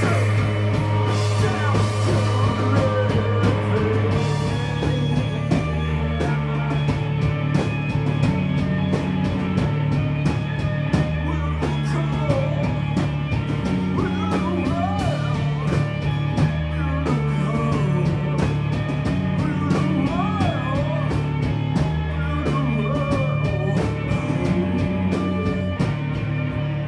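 A live noise-rock band playing loud and steady, with a repeating bass line, guitars and regularly struck cymbals. There may be singing. The cymbals drop out near the end.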